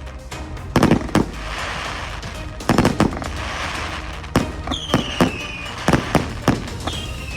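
Multi-shot fireworks cake (298 shots) firing: sharp bangs in quick succession with crackling between them, and a whistle sliding down in pitch about halfway through and another near the end.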